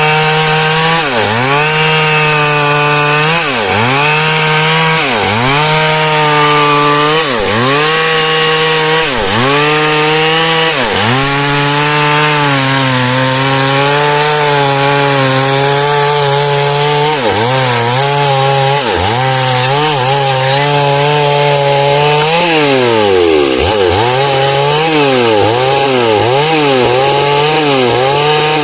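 Stihl two-stroke chainsaw cutting heartwood lengthwise into beams under load, its engine pitch sagging and recovering about once a second as the chain bites into the wood. The pitch holds steadier for a few seconds around the middle and dips deeper again near the end.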